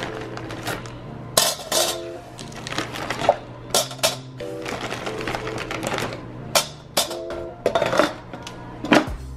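Background music, with sharp clicks and rustling as frozen chicken nuggets are taken from a crinkly plastic bag and set into an air fryer's perforated metal basket. Near the end the basket drawer is pushed shut with a knock.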